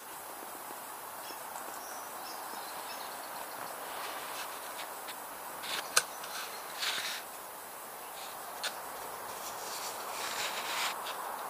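Outdoor ambience recorded through an action camera's microphone: a steady hiss with high, thin insect buzzing. A sharp click about six seconds in, with brief rustles around it and again near the end.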